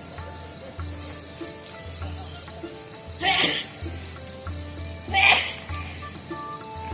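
Steady high chirring of insects over background music with a regular low beat and short melodic notes. Two short swishes come about three and five seconds in.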